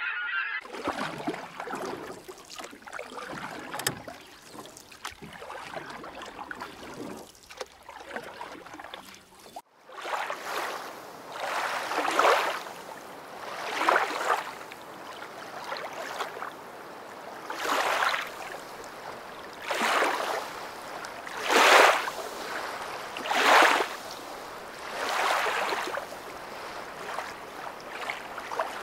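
Water washing and splashing along the hull of a small sailboat under way: a softer steady wash at first, then rushing surges about every two seconds as the boat moves through the chop.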